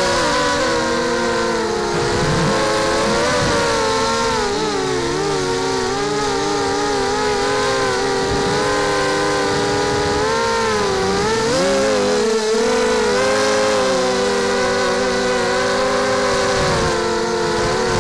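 Brushless motors and 5-inch propellers of a mini H-frame FPV quadcopter, Tiger 1806 2300KV motors with Gemfan 5x3 props, whining in flight as heard from a camera on the frame, the pitch rising and falling with throttle. The whine briefly drops about twelve seconds in, then picks up again.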